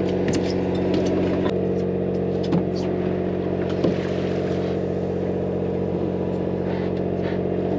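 Fishing boat's engine running steadily, a low even hum with a few faint knocks over it.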